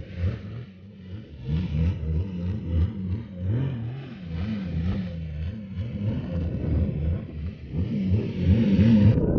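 Jet ski engine running under way, its pitch rising and falling as the throttle changes.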